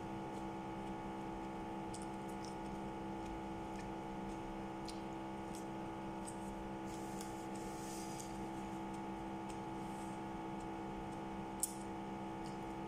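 Mouth sounds of someone chewing crisp raw vegetables such as lettuce and cucumber: faint crunches and wet clicks, thickest about seven to eight seconds in, with one sharp click near the end. A steady electrical hum of several tones runs underneath.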